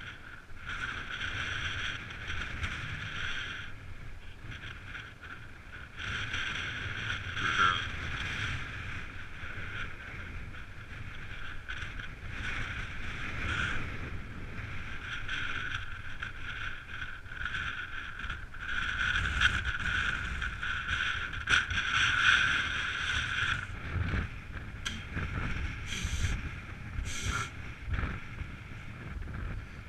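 Electric mountain bike's motor whining on and off, with wind buffeting the microphone.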